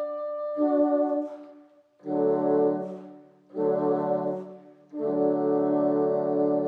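A bassoon quartet playing slow sustained chords together, each chord fading away before a short break and the next entry; the last chord, starting about five seconds in, is held long.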